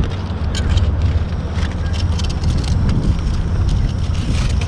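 Aluminium foil crinkling in short spells as it is folded around a pan lid, over a steady low rumble.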